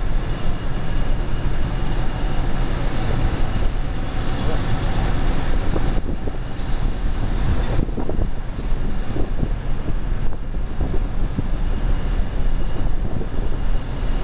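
Heavy industrial machinery running: a loud, steady rumble with thin high-pitched squeals that come and go.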